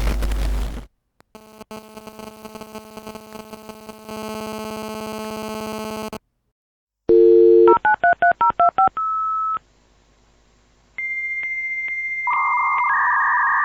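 A series of electronic telephone and interference sound effects: a buzzing electronic drone, then a telephone dial tone and a quick run of touch-tone (DTMF) dialing beeps ending in a steady tone. After a short pause comes a high steady tone that gives way to a band of hiss near the end.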